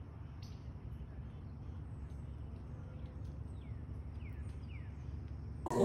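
Steady low rumble with a bird chirping several short, falling notes through the middle. A sudden louder sound cuts in near the end.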